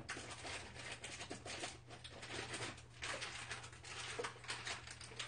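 Faint rustling with light clicks and knocks, someone rummaging for ingredients, over a steady low hum.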